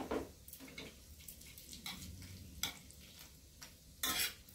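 Whole spices (cardamom, cloves, dried red chilli, bay leaves) frying in hot ghee in a stainless steel pan: a faint sizzle with scattered sharp pops, and a louder scrape of a metal spatula in the pan about four seconds in.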